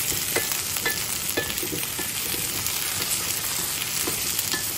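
Squash cubes and onion sizzling as they fry in a stainless steel skillet, stirred with a wooden spoon, with scattered scrapes and taps of the spoon against the pan.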